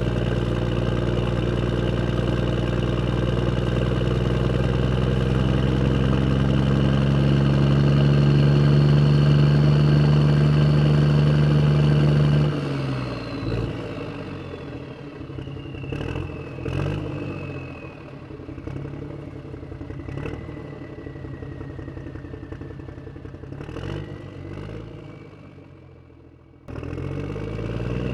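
A vehicle engine running steadily and rising a little, then cutting down suddenly about twelve seconds in. What follows is quieter: a lower running sound with slow gliding whines, clatter and a few sharp knocks, which drops away for a moment near the end and then comes back louder.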